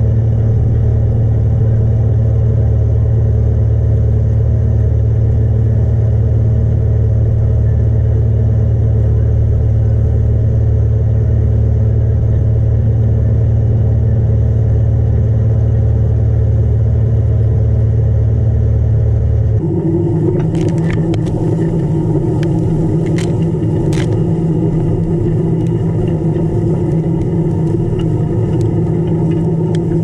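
Fiat 180-90 tractor's six-cylinder diesel engine running steadily under load while pulling a Vogel & Noot reversible plough. About two-thirds of the way through, the sound switches abruptly to a close, rougher rumble of the plough bodies cutting and turning the soil, with a few sharp clicks and knocks.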